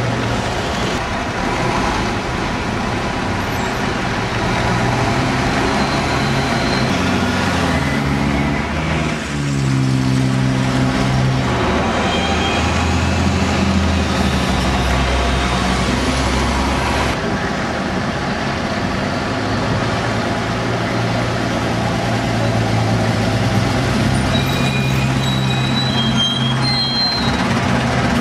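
Street traffic dominated by diesel engines of Routemaster double-decker buses and other vehicles running and pulling away, with one engine note dipping and climbing again about ten seconds in.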